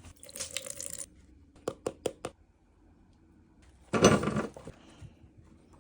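Kitchen dish and utensil handling: a brief rattle at the start, four quick clicks, then a louder clatter about four seconds in.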